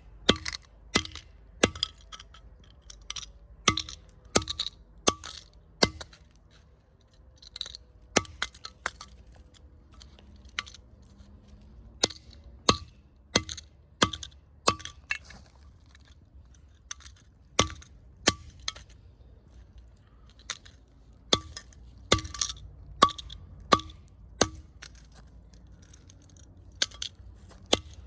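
Master Lock three-number combination lock being struck again and again with a tool. Each blow is a sharp metallic clink with a short ring, coming about once or twice a second, with brief pauses between runs of blows.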